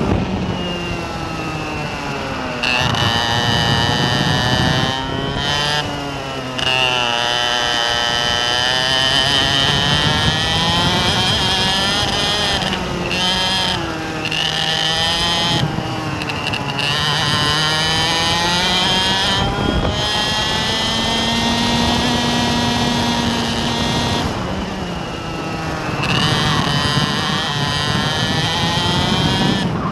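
An engine running throughout, its pitch slowly rising and falling several times, with a steady high whine above it that breaks off briefly now and then.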